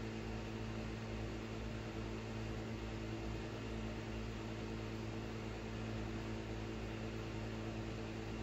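Steady low electrical hum with a faint even hiss: room tone.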